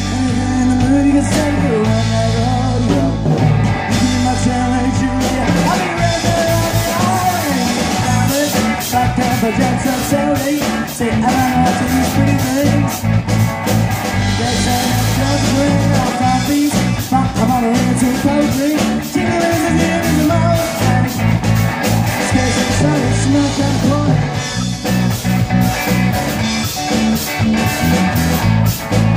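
Live rock band playing: electric guitar, bass guitar and drums, amplified through a stage PA.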